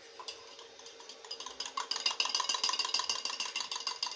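Raw eggs being beaten with a metal spoon in a small steel bowl: rapid, ringing clinks of spoon on bowl, starting about a second in and growing louder and denser.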